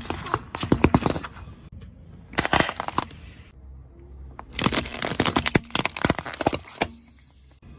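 Crunching and cracking of objects being crushed under a car tyre, in three separate bursts of rapid snaps and crackles.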